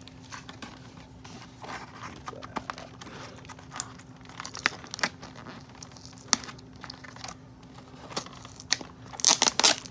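Cardboard doll packaging and its tape being handled and pried apart: scattered light clicks and crinkles, with a short burst of louder crinkling near the end.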